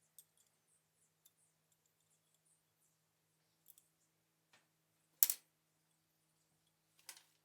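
Sparse light clicks and taps, the sharpest about five seconds in and another near the end, over a faint steady hum.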